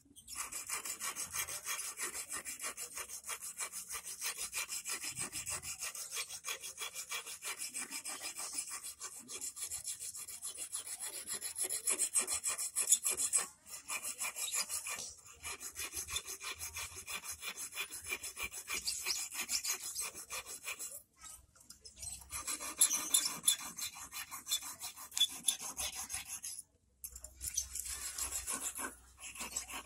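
Small hand file rasping back and forth on the point of a stainless-steel wire hook in quick short strokes, stopping briefly three times: the hook point is being sharpened.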